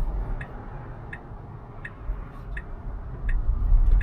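Tesla turn-signal indicator ticking steadily, about three ticks every two seconds, over the low rumble of the car rolling down the road.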